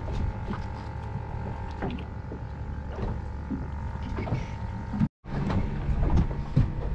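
Steady low rush of wind and water around a small fiberglass boat at rest, with scattered light knocks from handling on deck. The sound drops out for a moment about five seconds in.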